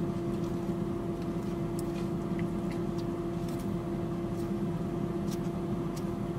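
A parked car's air conditioning running with the engine idling: a steady hum with one held low tone, and a few faint clicks from eating with a plastic fork.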